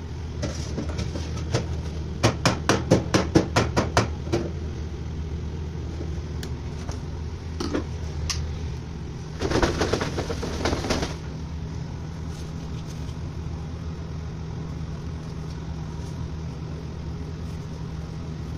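Steady low hum of kitchen equipment, with a quick run of about ten sharp metal taps a couple of seconds in as the wire-mesh frying skimmer is knocked against the wire fry basket. There is a brief rattling clatter about ten seconds in.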